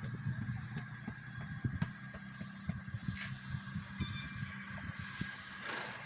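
A vehicle engine running at a steady idle, with scattered light knocks and clatter as a heavy truck tyre is handled.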